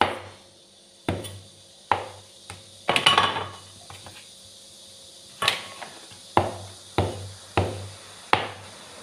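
Cleaver chopping through a log of bun dough and knocking on a wooden cutting board: about ten sharp knocks, mostly a second or less apart, with a quick run of knocks about three seconds in and a short pause after it.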